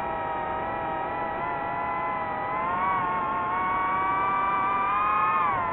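DJI FPV drone's motors and propellers whining in flight, a steady multi-toned pitch that rises slightly about halfway through and dips near the end as the throttle changes.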